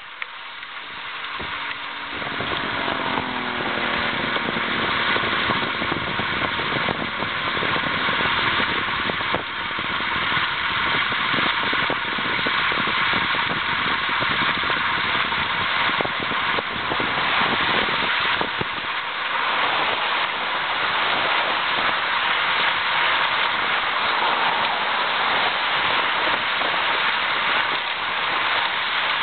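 Steady rush of wind and road noise from moving at riding speed along a highway, with a falling hum a few seconds in.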